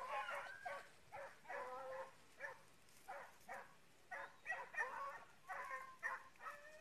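Faint baying and yelping of a pack of hunting dogs working a scent trail, a quick run of short high calls with brief gaps.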